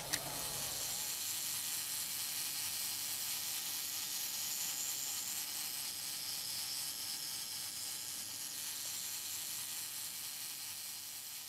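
Steady hiss with a faint, even hum underneath, slowly fading toward the end.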